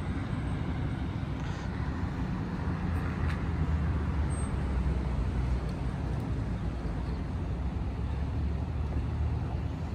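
Steady road traffic noise: a low rumble of cars passing through a city intersection.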